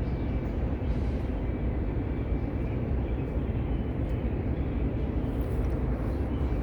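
Steady, deep rumbling outdoor noise with no distinct events.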